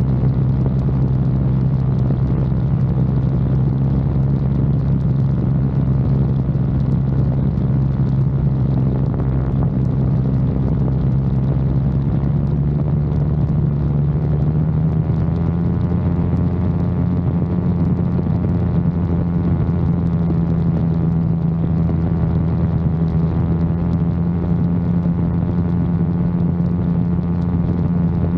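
Quicksilver Sport 2S ultralight's two-stroke engine and propeller running steadily in flight, heard close up from the airframe. About halfway through, the engine speeds up and its pitch rises, then holds steady at the higher note.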